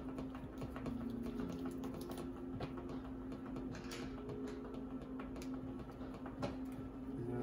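Sleeved trading cards being handled at a table: a string of light, irregular clicks and taps over a faint steady hum.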